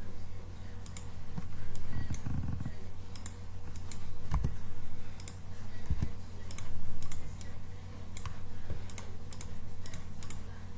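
Irregular clicks of a computer mouse and keyboard, at an uneven pace, over a low steady hum, with a few soft low thumps.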